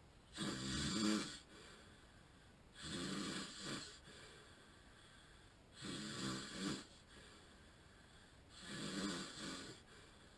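A man with sleep apnea snoring in his sleep: four rattling snores, each about a second long, coming at a regular pace about every three seconds.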